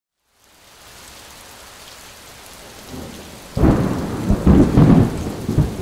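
Steady rain fading in, then a sudden crack and low rumble of thunder about three and a half seconds in, swelling several times over about two seconds.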